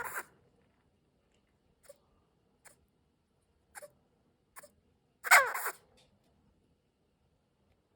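Senegal bushbaby calling: a few short, faint calls, then one loud call about five seconds in that falls in pitch.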